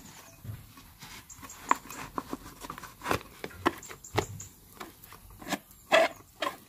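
Handling noise from a removed front shock absorber strut and its rubber dust boot worked by gloved hands: irregular clicks, knocks and rubbing, with the loudest knock about six seconds in.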